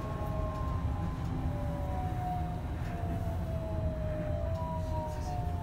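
Interior of a Kanazawa Seaside Line 2000-series rubber-tyred automated train in motion: a steady low running rumble with the whine of the traction motors' VVVF inverter, several tones slowly falling in pitch as the train slows.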